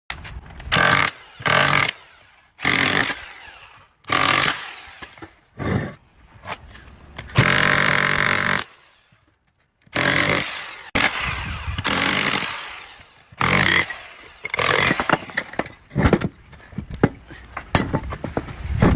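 Electric drill run in repeated short bursts against an electric motor, revving up and cutting off. It has one longer steady run about halfway through and quick stuttering bursts near the end.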